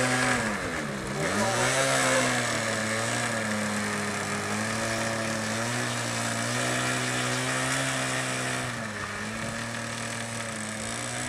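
Radio-controlled model P-51 Mustang's engine running on the ground. Its pitch dips sharply about a second in as the throttle is pulled back and opened again, then steps down a little near the end.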